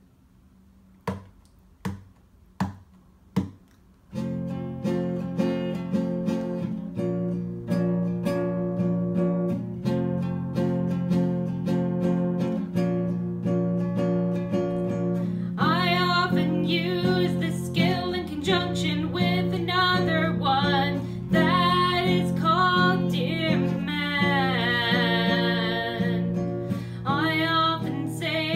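Four short, evenly spaced taps, then a nylon-string classical guitar playing slow chords. About halfway through, a woman starts singing along.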